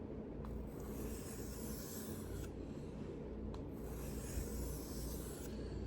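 Steel knife blade being stroked back and forth on a whetstone by hand, a steady low scraping.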